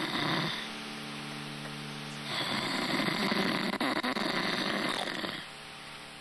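Comic snoring: one snore trails off just after the start, then a longer snore runs from about two to five seconds in, with a quiet held tone between them.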